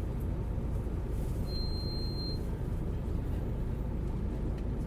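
Hino U-HT2MLAA Blue Ribbon city bus running, a steady low engine and road rumble. About a second and a half in, a short high beep sounds over it.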